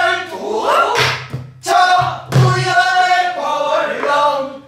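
A small group singing pansori in unison, in long held and bending notes, to the beat of buk barrel drums.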